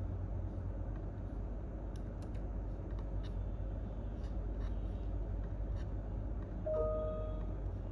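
Scattered computer keyboard clicks, a few light key presses every second or so, over a steady low hum of office room tone. About seven seconds in, a brief pitched tone sounds for just under a second.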